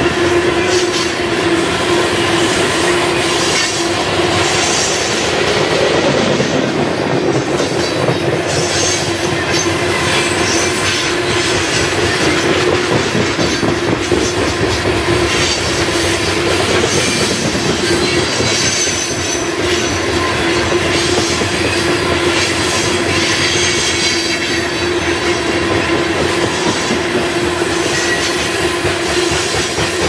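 Coal cars of a Union Pacific coal train rolling past: a steady rumble of steel wheels on rail, with clacks over the rail joints and a steady ringing tone from the wheels.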